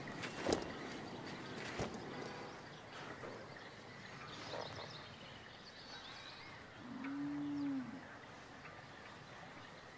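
A cow moos once, one arching call of about a second about seven seconds in. Around it are faint pasture sounds, with two light knocks in the first two seconds and a few faint high chirps.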